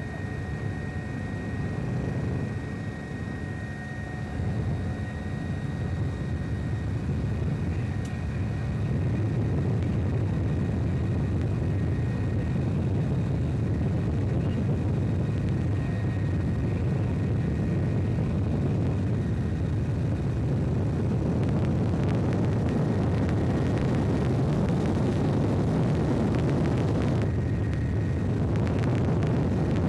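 Aircraft engine noise heard on board: a steady low drone that grows a little louder after about nine seconds, with a faint thin whine over it through most of the first two-thirds.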